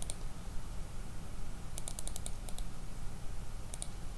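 Computer keyboard typing: a quick run of about eight keystrokes about two seconds in and a couple more near the end, over a steady low hum.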